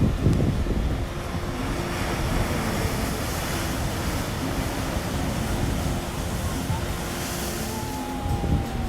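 Ocean surf washing steadily on a beach, with wind buffeting the microphone. A faint thin falling whistle sounds near the end.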